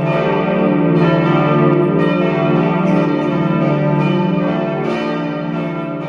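Church bells ringing together, several bells overlapping in a sustained peal, easing off slightly near the end.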